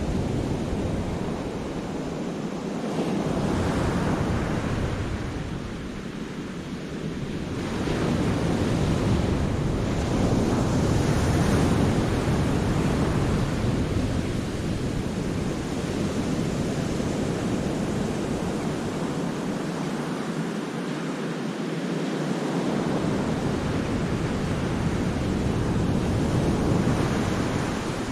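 Sea waves breaking and washing around the rocks of a cove, surging and ebbing, loudest from about eight to thirteen seconds in, with wind rumbling on the microphone at times.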